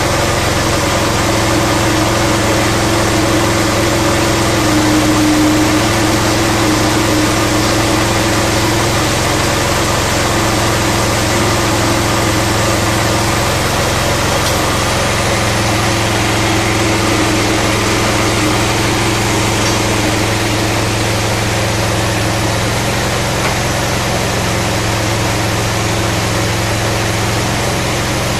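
Small gasoline–LPG combo engine running steadily at constant speed, driving a mini paddy huller.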